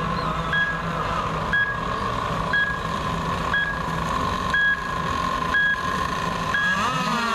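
Race start countdown timer giving short high beeps once a second, counting down the last seconds to the start, over the steady whine and hum of radio-controlled model racing boats' motors running on the water.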